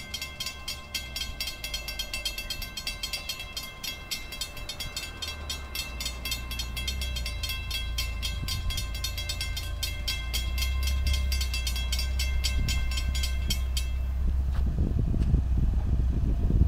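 Railroad crossing warning bell ringing rapidly and evenly as the crossing gates come down, then stopping a couple of seconds before the end. Underneath, a low rumble grows steadily louder and turns rougher near the end.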